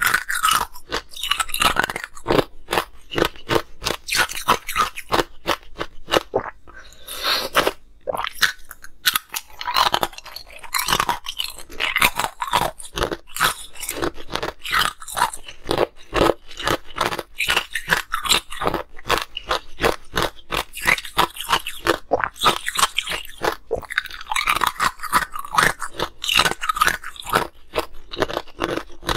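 Ice being bitten and chewed close to the microphone: small cup-shaped ice cubes crunching and cracking in a dense run of sharp cracks, several a second.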